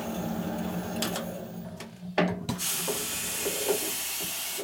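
Valve-seat cutting machine running with its cutter in a Panhead cylinder head's valve seat, a steady motor hum. About two seconds in there is a sharp click, and for the last two seconds a loud hiss of air that cuts off suddenly as the cutter is lifted off the seat.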